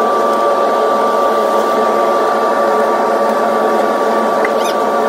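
An electric motor or blower running steadily: a loud, even rush with a thin, steady high whine over it.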